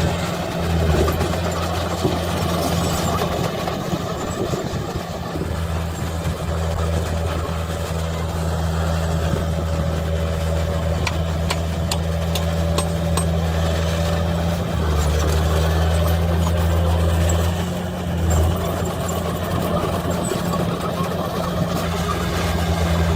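Heavy diesel engine of earthmoving machinery running steadily, its note shifting slightly about fifteen seconds in, with a few faint clicks near the middle.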